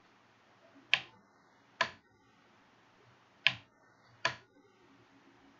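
Four sharp single computer mouse clicks, unevenly spaced, each with a short tail.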